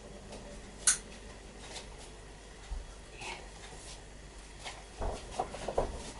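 Faint kitchen handling sounds: a single sharp clink about a second in, a few light ticks, then a cluster of soft knocks and rustles near the end.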